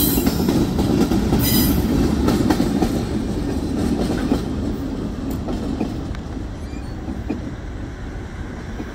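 Railroad flatcars rolling past on the rails, a steady low rumble with scattered clicks that fades as the tail end of the train moves away.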